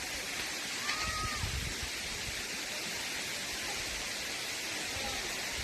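Steady rush of falling water from a waterfall, an even hiss, with irregular low rumbles underneath and a faint short chirp about a second in.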